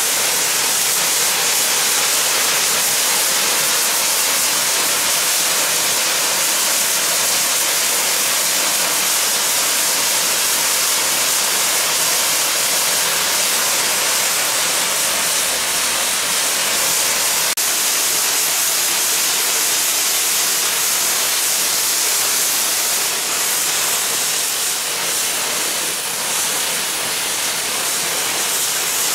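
Safety valves of the rebuilt Bulleid West Country class steam locomotive 34046 Braunton blowing off with a loud, steady hiss: the boiler is at full working pressure while the engine stands.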